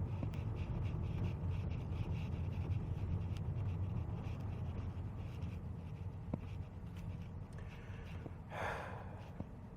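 Low road and tyre rumble inside an electric car's cabin, slowly growing quieter as the car slows into a parking spot. A short breathy sniff or exhale comes near the end.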